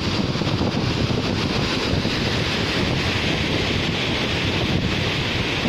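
Steady rush of water pouring over the rocks at Hogenakkal Falls on the Kaveri, with spray-laden wind buffeting the microphone.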